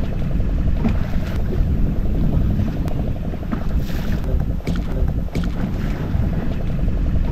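Fishing boat's engine running steadily, a dense low rumble with wind buffeting the microphone, and a few light knocks.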